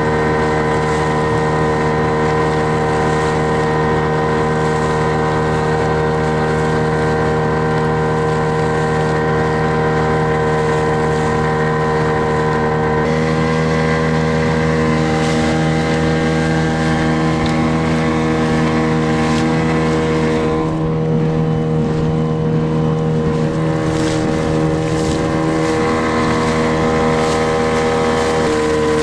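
Outboard motor on an inflatable boat running steadily at speed, its pitch stepping slightly a couple of times, with water splashing against the hull.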